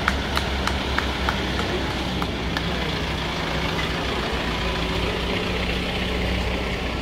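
Engine of an SML Isuzu ambulance running steadily as the vehicle moves off and passes close by, with a few sharp clicks in the first couple of seconds.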